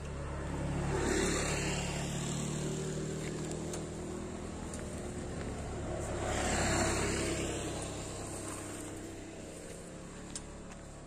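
Two motor vehicles passing on the road one after the other. Each swells to a peak and fades away, the first about a second in and the second about seven seconds in.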